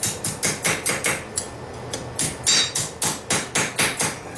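Blacksmith's hammer striking a steel rod on the anvil, a quick run of blows about four or five a second, a short pause in the middle, then another run, to narrow and straighten a bent loop.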